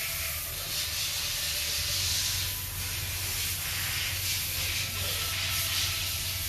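A steady hiss that swells and eases slightly, over a low hum.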